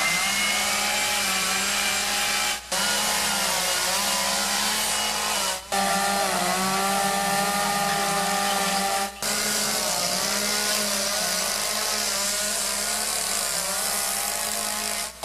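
Petrol chainsaws, an Echo among them, cutting into wood for carving. The engine note sags and picks up again as the bar bites in and comes free. The sound comes in several short stretches with three brief breaks between them.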